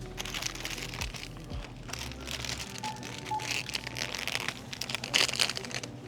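Crinkling and rustling of plastic packaging being handled, in irregular bursts with many small crackles, loudest near the end.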